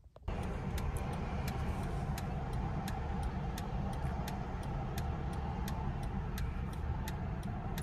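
Steady low rumble of a car idling, heard from inside the cabin, with the indicator relay ticking evenly about two to three times a second.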